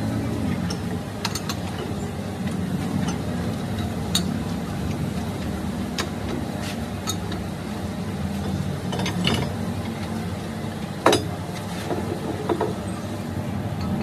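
A steady low machinery hum, with scattered metallic clicks and knocks as a metal casting is set and adjusted in a lathe's four-jaw chuck. The sharpest knock comes about eleven seconds in.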